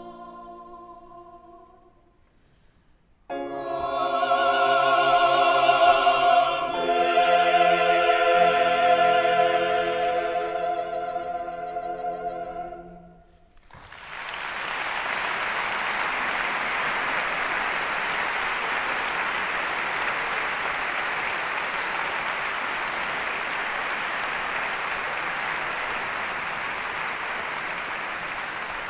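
Mixed choir ending a sacred choral piece. Soft singing fades into a brief pause, then the full choir sings a loud, long final chord for about ten seconds until it is cut off. Steady audience applause follows.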